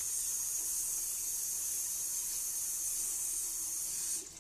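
Gas stove burner hissing steadily as it heats a pan, cutting off abruptly near the end.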